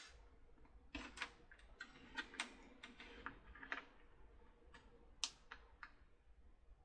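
Faint, irregular light clicks and taps, about a dozen of them, from multimeter probe tips and small parts being handled on a workbench while a voltage is measured across LED leads.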